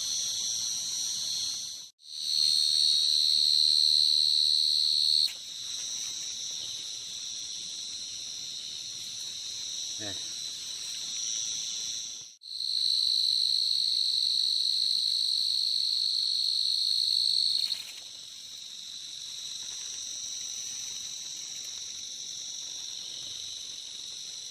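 Dense chorus of field crickets calling at night, a steady high trilling. It drops out abruptly twice, and each time comes back louder for a few seconds.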